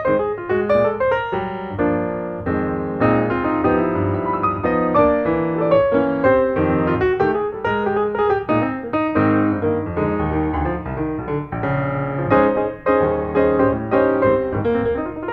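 Background piano music, a run of quick notes that keeps going steadily.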